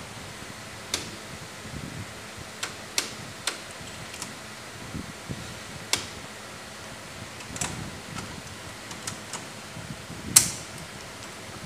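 Siemens WL air circuit breaker being racked out with its hand crank: irregular sharp clicks and knocks from the racking mechanism, the loudest about ten seconds in, as the breaker winds from the connected toward the test position.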